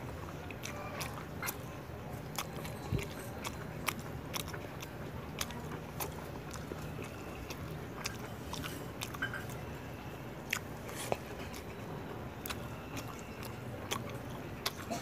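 A person chewing and eating fish curry with rice by hand, with irregular wet mouth clicks and smacks.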